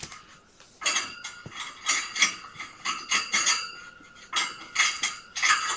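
Rapid light clinks and rattles of hard objects against a dish, starting about a second in, easing off briefly near the middle, then going on.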